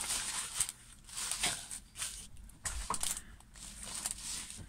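Clear plastic film and paper crinkling in several short, irregular bursts as a plastic-wrapped diamond-painting canvas and its kit card are handled.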